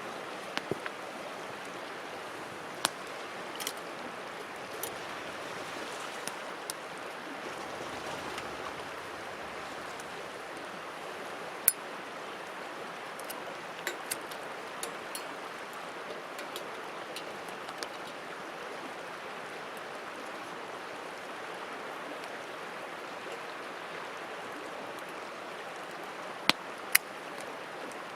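Campfire burning: a steady hiss with sharp, irregular pops and crackles scattered through it, a louder pop about twelve seconds in and two more near the end.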